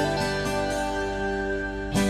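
Background music: an instrumental track with steady held notes.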